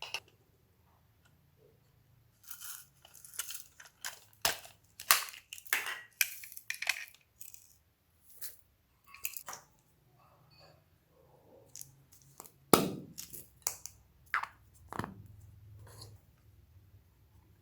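Slime being squished and stretched by hand, making irregular sticky clicks and pops in clusters, with a quiet pause partway through.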